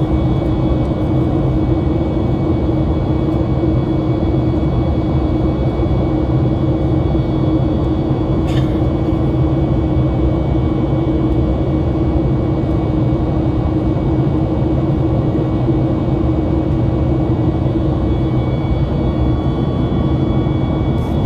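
Cabin noise of a Boeing 737 MAX 8 with its CFM LEAP-1B turbofans at high thrust: a steady loud rumble with a constant engine whine on top. There is a brief click about eight seconds in.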